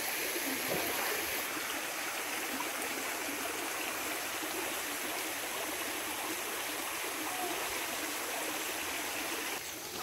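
Steady rushing of a flowing jungle stream, a little quieter near the end.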